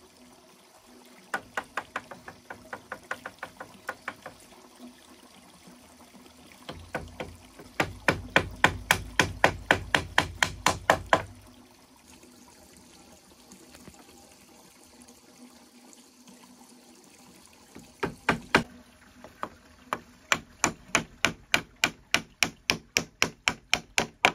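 Runs of sharp knocks from a tool striking bamboo, about four blows a second, with a pause in the middle.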